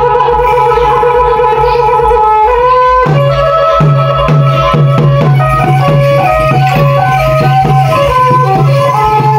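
Khmer ngũ âm (pinpeat) ensemble music for a masked dance: a reedy wind instrument holds a long note, then about three seconds in a quick run of short melodic notes takes over, over a steady low drone and a pulsing low beat.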